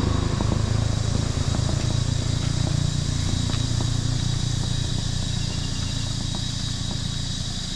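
A vehicle engine running with a steady low hum that slowly fades away, with a few faint ticks over it.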